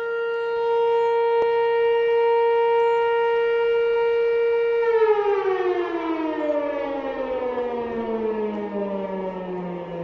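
MSL-6 siren sounding the fire brigade call-out alarm: a steady wail that, about five seconds in, winds down in a long falling glide.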